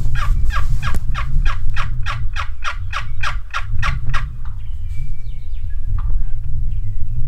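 Wild turkeys calling: a rapid run of about eighteen falling notes, some four a second, lasting about four seconds, followed by faint chirps of small birds.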